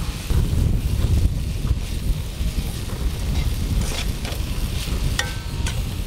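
Strong wind buffeting the microphone in a loud, uneven low rumble. Metal tongs clink against a steel wok a few times near the end as pork and leek are stir-fried.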